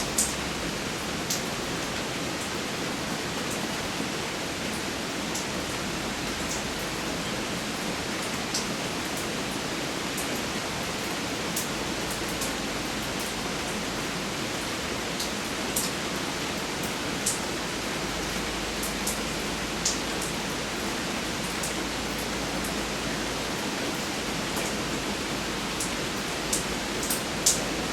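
Steady rain falling, an even hiss with scattered sharp taps of nearby drops now and then.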